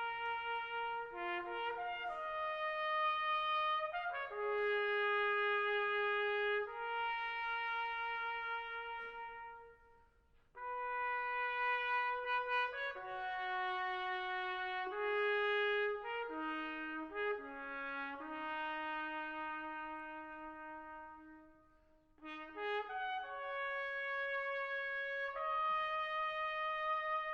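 A slow solo melody on a trumpet-like brass instrument, long held notes in three phrases with short pauses between them.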